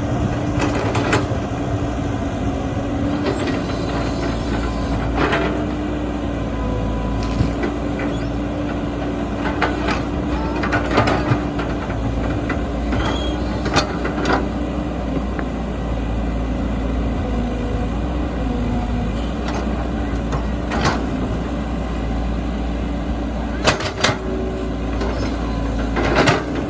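Caterpillar 312 hydraulic excavator's diesel engine running steadily under digging load, with a steady hydraulic hum, while the bucket tears at earth and roots. About ten sharp knocks and cracks come at irregular intervals, the loudest near the end.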